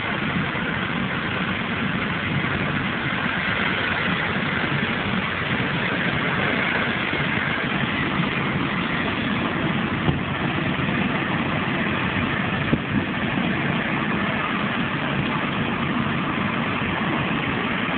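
Helicopter engine and rotor running steadily: an even rushing noise with a low hum beneath, unchanging throughout.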